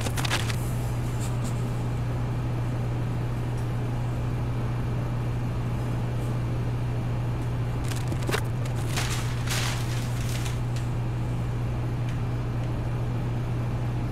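A steady low hum, with packing paper and plastic wrap rustling a few times a little past the middle as metal exhaust header parts are unwrapped from a shipping box.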